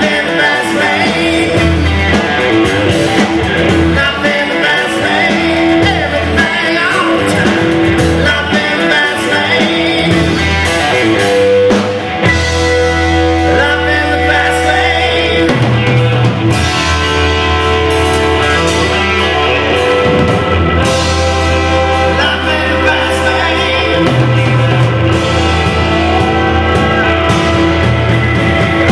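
Live rock band playing a song: a man sings lead over electric guitar, electric bass, keyboards and drums.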